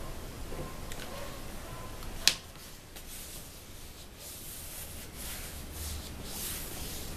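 Hands rubbing and pressing a sheet of EVA craft foam down onto hot glue, a soft rustling scrape that grows in the last couple of seconds. A single sharp click about two seconds in.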